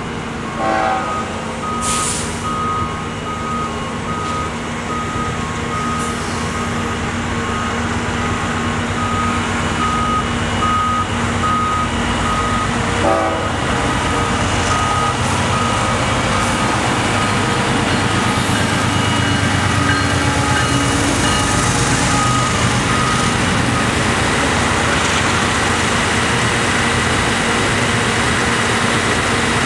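A heavy truck's backup alarm beeps steadily over a running diesel engine. The noise of an approaching double-stack intermodal freight train, a rumble and wheel hiss, builds up and takes over as the beeping stops about three-quarters of the way through.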